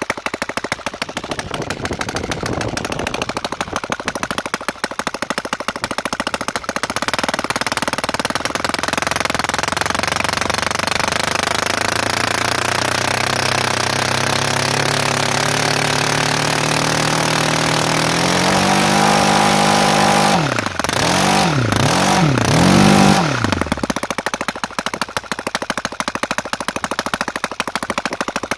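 Torqpro 70 engine running on a test bench through an open exhaust, loud. Its speed climbs slowly for several seconds, then it is blipped up and down three times in quick succession before settling back to steady running.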